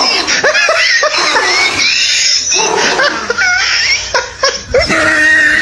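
Laughter, several voices overlapping in continuous waves.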